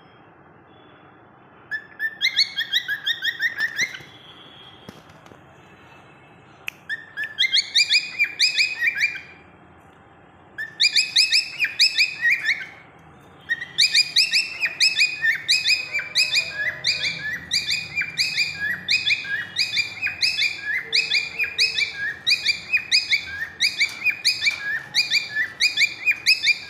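A small pet parrot chirping: rapid, repeated high-pitched calls, several a second, in short bouts that merge into continuous chirping from about halfway on.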